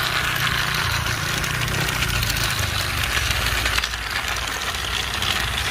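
Battery-powered toy trains, a Thomas & Friends Harvey engine and an Executive Train set, running on plastic track: a steady whir of their small electric motors and wheels with a low buzz.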